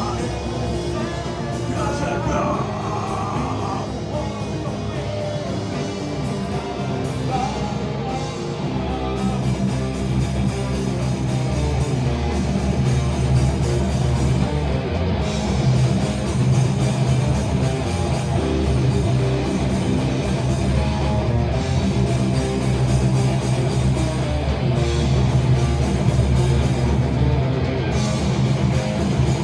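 Heavy metal band playing live at full volume, with loud electric guitars over drums.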